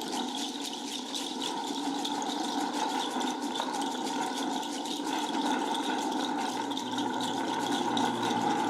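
Experimental live foley-style soundtrack: a dense, steady texture of fine rattling and clicking, with a low hum joining about six and a half seconds in.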